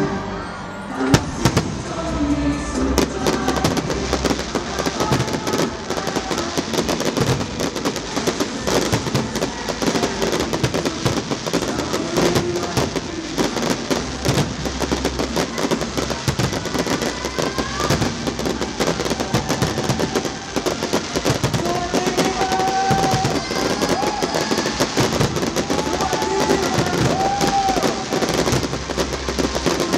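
Aerial fireworks going off in a dense, continuous crackle of many small bursts and bangs, with one sharp bang about a second in. Music plays underneath.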